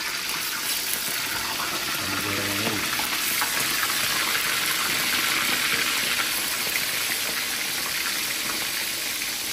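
Water running steadily from a tap.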